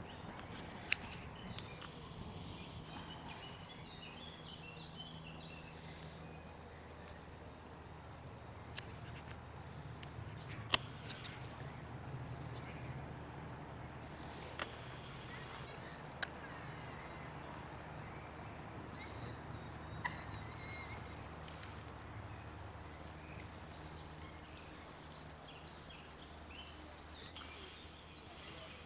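Outdoor park ambience: a small bird's thin, high call repeated about once a second, with a brief snatch of other small-bird song in the first seconds and a steady low hum of distant traffic underneath. A few sharp clicks stand out now and then.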